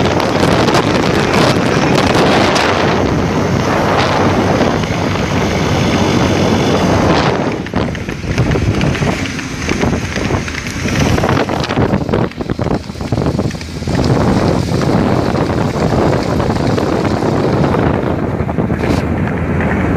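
Wind buffeting the microphone of a phone filming from a moving vehicle, over the vehicle's road and engine noise; the rush flutters and dips unevenly for a few seconds in the middle.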